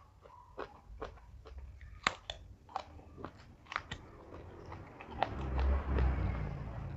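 Close-up crunchy chewing of raw vegetables (lalapan), with sharp crunches about once or twice a second. About five seconds in it gets louder and rougher, with a low rumble.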